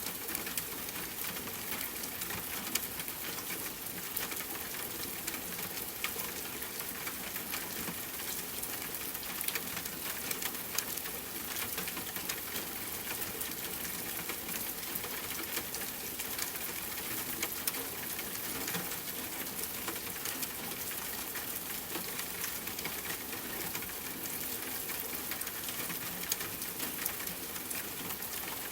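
Steady rainfall hiss mixed with a crackling fireplace fire, which adds frequent small pops and snaps.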